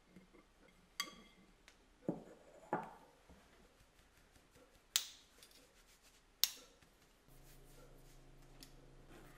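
Five separate sharp clinks and taps of a glass mixing bowl and a metal flour sieve being handled while flour is sifted over whisked egg foam; the first clink rings briefly. A faint low steady hum sets in near the end.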